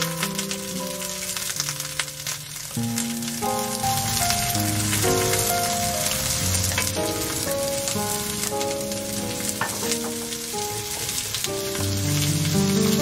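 Sliced onion and lotus root sizzling as they stir-fry in a frying pan, stirred with a wooden spatula. A background melody of held notes plays over the sizzle.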